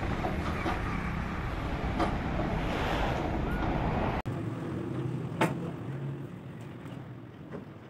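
Fiat 640 tractor's diesel engine running with a steady low hum and an occasional click. It cuts off abruptly about four seconds in, leaving quieter outdoor sound with one sharp click.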